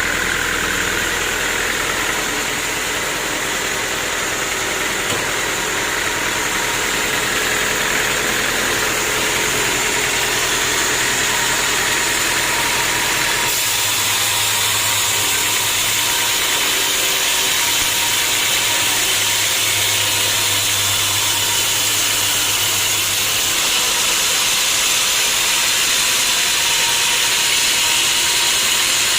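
Sawmill machinery running steadily with a loud, even hiss and an engine hum underneath, the low hum changing pitch about halfway through.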